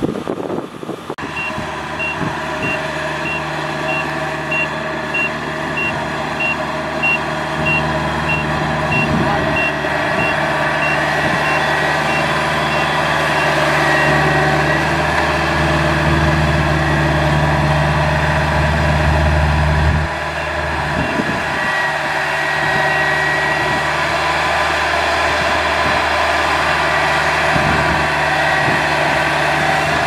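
Kubota DC-70G combine harvester's diesel engine running steadily, with a high warning beeper sounding about twice a second from about a second in until about twelve seconds in.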